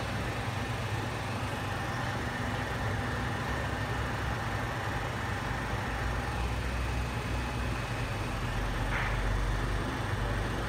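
Class 377 Electrostar electric multiple unit standing at the platform, its on-board equipment giving a steady hum with a faint high whine.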